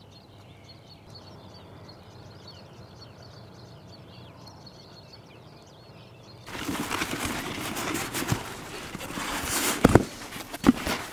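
Faint chatter of many short bird calls from a distant flock. About six and a half seconds in, a sudden loud rush of wind and rustling noise on the microphone takes over, with a few sharp knocks near the end.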